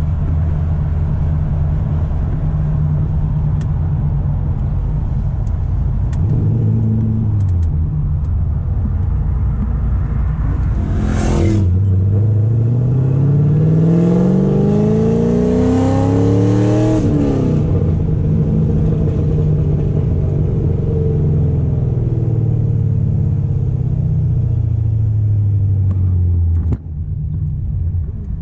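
Supercharged V8 of a 2006 Corvette heard from inside the cabin while driving: a steady cruising drone, then a sudden burst of noise about eleven seconds in as it pulls hard, its pitch rising for about five seconds before dropping at the shift. Near the end the engine note falls away as it comes off the throttle. The engine is running rough with a misfire and making no power.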